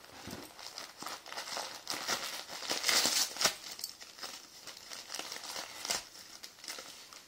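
Gift wrapping paper crinkling and tearing in irregular rustles as a dog rips open a wrapped present with its paws and mouth, loudest around three seconds in.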